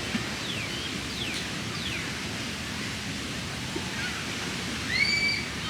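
Steady wash of beach surf with birds calling over it: a few quick descending whistles in the first two seconds, then a louder call about five seconds in that rises and then holds its note.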